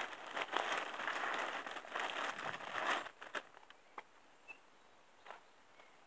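Multi-purpose potting compost being handled and pressed into a pot around a viola plant: a crinkling rustle with many small clicks for about three seconds, then only a few light taps.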